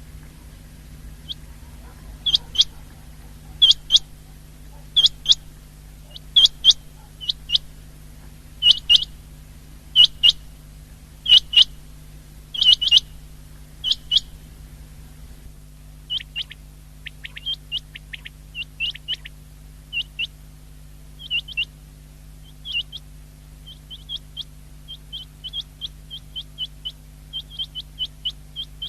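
Common quail song: loud phrases of two or three sharp, high notes repeated about every second and a half, giving way about halfway through to quieter, quicker runs of short notes, over a steady low hum.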